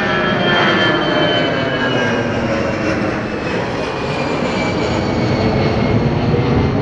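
Four GEnx jet engines of a Boeing 747-8F freighter running on the runway: steady jet noise with several whining tones that slowly fall in pitch.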